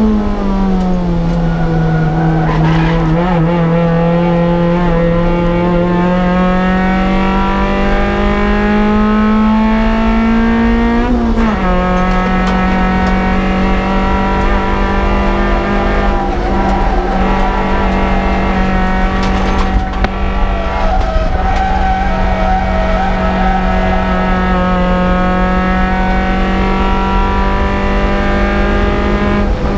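Suzuki Swift Sport's stock 1.6-litre M16A four-cylinder engine running hard at high revs, with an upshift at the start and another about 11 seconds in, the pitch dropping sharply at each. The revs then hold high with slow rises and dips in pitch.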